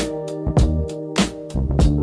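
Background music: an upbeat funk-style track with a steady drum beat and sustained pitched chords.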